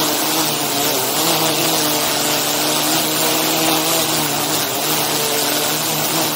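DJI Inspire 2 quadcopter hovering, its motors and propellers giving a loud, steady buzzing hum over a broad hiss, the pitch wavering slightly now and then.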